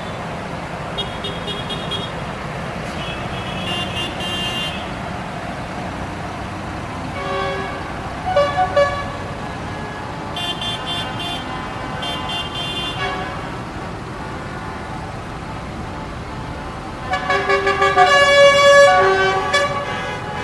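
Tractor engines run steadily as a convoy passes, with vehicle horns tooting several times. Short honks sound over the first half, and a longer, louder burst of honking comes about seventeen seconds in.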